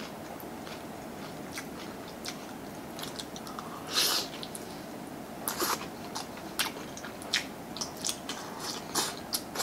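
Close-miked eating: a loud bite into a fried egg about four seconds in, then chewing with a run of short sharp mouth clicks and smacks.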